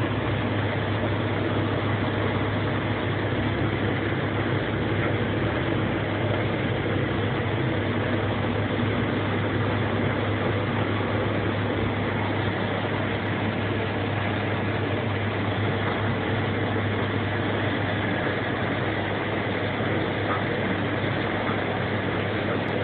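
Swiss SBB train running, heard as a steady rushing noise with a constant low hum, without change throughout.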